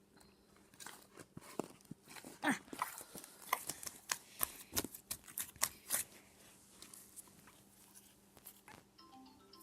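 Sticky slime being pulled and peeled off a hand: a string of wet snaps, clicks and squelches, thickest in the middle stretch. Faint music with mallet-like notes comes in near the end.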